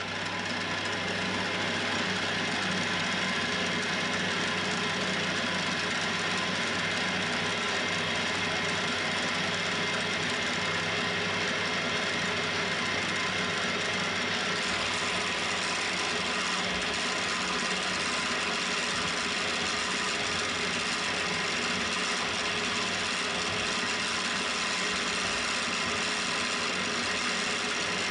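Milling machine spindle running steadily while an 8 mm slot drill cuts a slot through 3 mm mild steel bar: a continuous, even machining noise.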